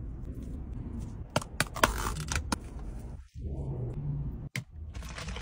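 Close-up eating sounds of chicken and rice being torn, scooped and eaten by hand: scattered sharp clicks and wet smacks, several in quick succession, over a steady low rumble.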